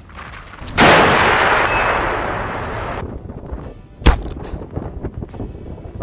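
Staged gunfire sound effects: a heavy blast about a second in that dies away over about two seconds, then one sharp single shot about four seconds in.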